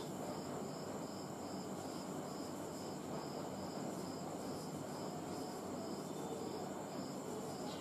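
Faint insect chirping, an even pulse about three times a second, over a steady high whine.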